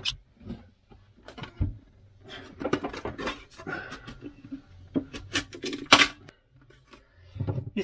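Brittle layers of old paint and wallpaper being picked and prised off a galley bulkhead by hand: irregular cracks, clicks and short scrapes, the sharpest about six seconds in.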